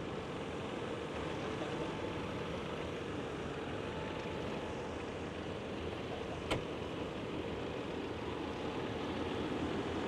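Tractor engine running steadily, heard as an even mechanical hum with a faint held tone, and one sharp click about six and a half seconds in.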